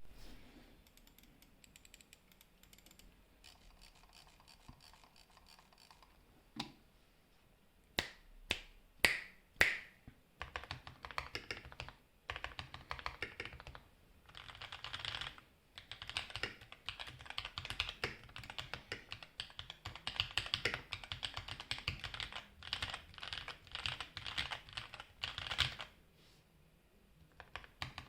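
Typing on a mechanical keyboard with lubed Kailh Red linear switches and lubed stabilizers. It starts with a few single, louder keystrokes about eight seconds in, then runs into fast continuous typing with brief pauses, and stops a couple of seconds before the end.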